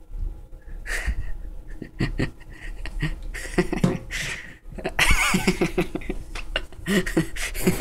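A person gagging and making muffled throat noises while holding a raw egg in the mouth, trying to swallow it. The sounds come in uneven bursts and are busiest in the second half.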